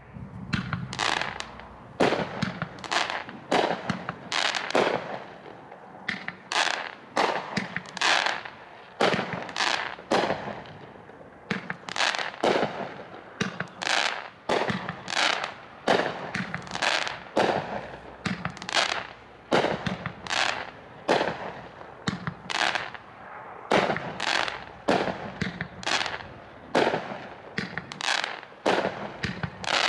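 A 36-shot, 500-gram consumer fireworks cake firing: shots going off one after another, about one or two a second, each a sharp report with a short echo.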